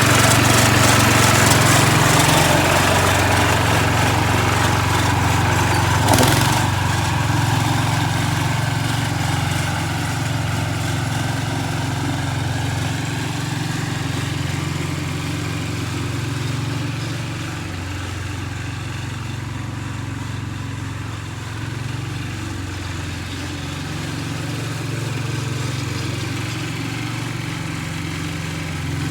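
An engine running steadily, a little louder in the first few seconds, with a single sharp knock about six seconds in.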